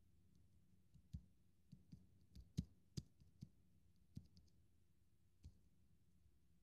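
Faint, irregular clicks of typing on a tablet's on-screen keyboard, about ten taps in quick uneven succession.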